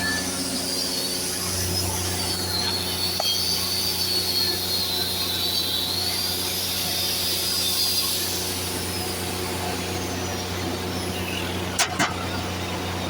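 Engine-driven welding machine running steadily with a constant hum, a high wavering whine riding over it. Two sharp clicks come near the end.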